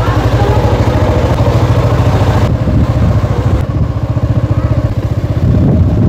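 Motorcycle engine running with a steady, evenly pulsing low beat, just after being started, as the loaded bike sets off.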